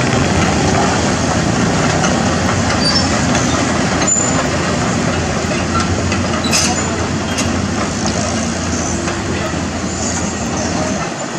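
Caterpillar 320D hydraulic excavator's diesel engine running steadily up close, mixed with passing motorbike traffic, with a couple of sharp metallic clicks about four and six and a half seconds in.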